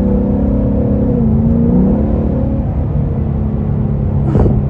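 2021 Ford Mustang GT's 5.0 L V8 running through an X-pipe with the resonators deleted, a steady deep exhaust note under way. The pitch dips and comes back up about a second and a half in, and there is one short sharp crack near the end.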